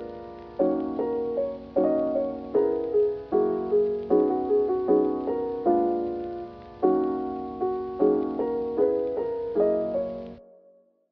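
Background music: gentle piano chords and melody, fading out and stopping near the end.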